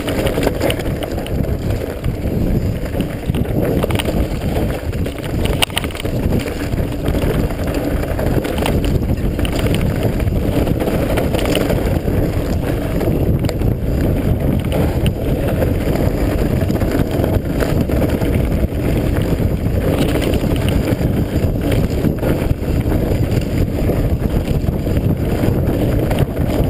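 Mountain bike ridden fast downhill over a rough dirt trail: a steady rumble of tyres and wind buffeting the camera microphone, with frequent knocks and rattles from the bike over bumps.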